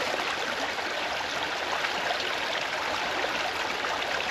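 Stream water running steadily, an even rushing.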